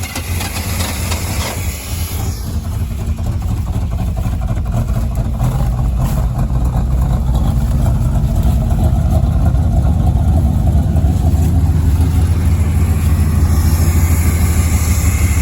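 A 1991 Chevy pickup's 350 V8 running with a steady, loud low rumble, getting a little louder a few seconds in. It runs only on fuel poured into the carburetor, because the truck has no working fuel pump.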